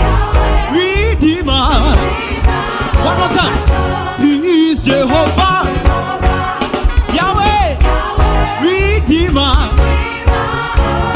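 Upbeat gospel praise music: voices singing lines that slide up and down over a band with a heavy bass and a steady beat.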